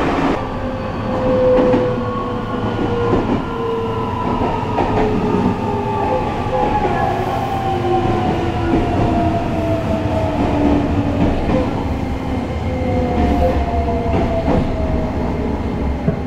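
On-board running sound of an N3000-series subway train with a Toyo IGBT-VVVF inverter: the traction motor whine falls slowly and steadily in pitch as the train slows, over the rumble and faint clicks of the wheels on the rails.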